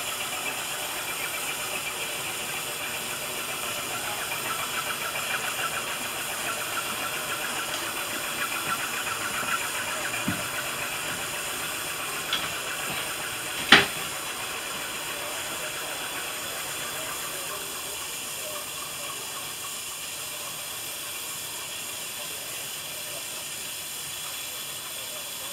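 Small narrow-gauge steam locomotive standing with steam hissing, the hiss softening in the second half. A single sharp clack about halfway through is the loudest sound.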